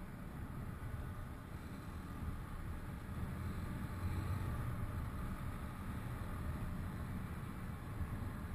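Riding noise from a motorcycle at about 50 km/h: a steady rush of wind on the microphone over engine and road noise, growing a little louder partway through as the bike speeds up.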